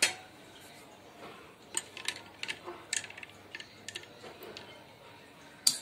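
Steel spoon stirring ice cubes in a glass of watermelon juice, with scattered light clinks of metal on glass and ice, and one sharper clink near the end.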